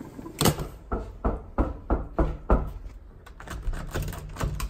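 A quick run of thumps, about three a second, then fainter clicking as a door's lever handle is turned and its latch opened.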